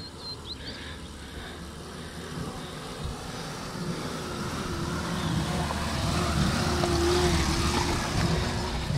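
Suzuki Potohar (SJ410) jeep's 1.0-litre four-cylinder engine running as it climbs a rocky dirt track, growing louder as it approaches and passes close about seven seconds in, with its tyres rolling over loose stones.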